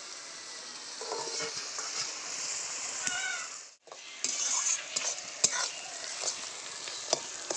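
Sliced onions frying in oil, sizzling steadily, while a spatula stirs them with repeated knocks and scrapes against the pan.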